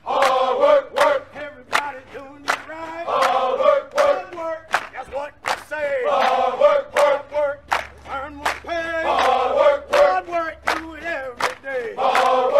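Music: a group of voices chanting or singing together in phrases over a steady beat of sharp clicks.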